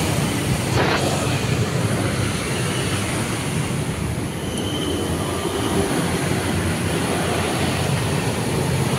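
Steady low rumble of passing motor vehicles.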